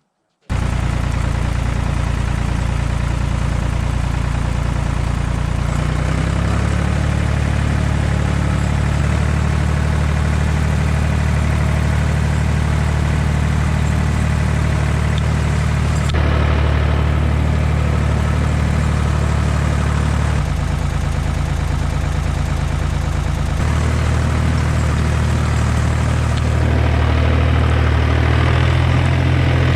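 Tractor engine running steadily with a low, even hum, its speed shifting a few times.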